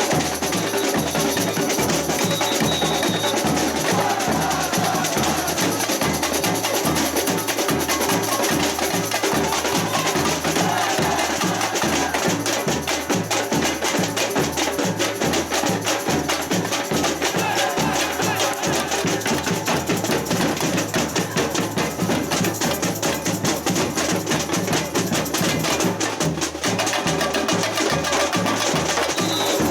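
Samba percussion ensemble (bateria) playing a steady groove: deep bass drums beat evenly under dense, fast snare and small-percussion strokes.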